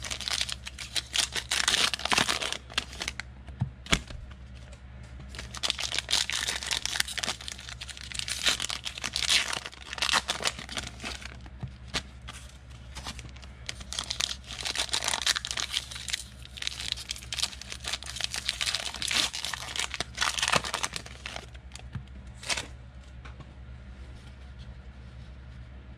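Foil trading-card pack wrappers being torn open and crinkled in spells, with small sharp clicks as the cards are handled. A steady low hum runs underneath.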